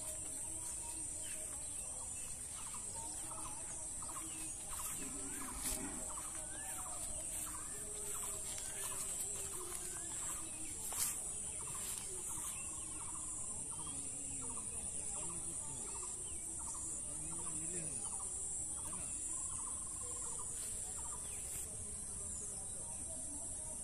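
A steady high-pitched drone of insects, with a bird repeating a short rising chirp about twice a second through the first half. Lower calls slide up and down throughout.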